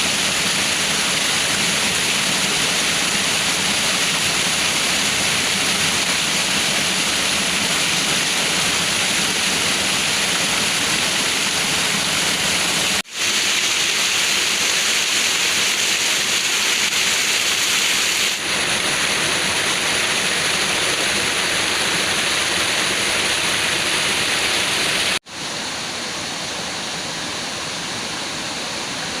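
Waterfall rushing steadily. The sound cuts out for a moment twice, about thirteen and twenty-five seconds in, and is a little quieter after the second break.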